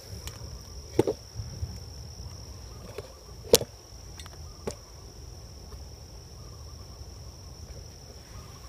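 Steady high-pitched chirring of crickets, with a few sharp clicks scattered through it, the loudest about three and a half seconds in.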